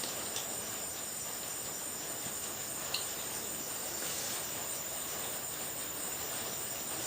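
Steady high-pitched insect trill, crickets, over a background hiss, with a faint click about three seconds in.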